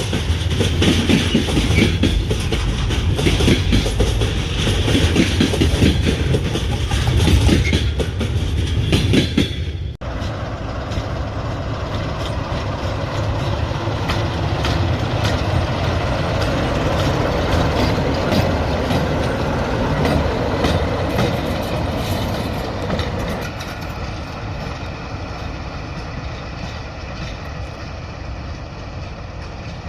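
Diesel-hauled train passing, its wheels clattering over the rail joints. About ten seconds in the sound cuts abruptly to a steadier train running by, which fades away near the end.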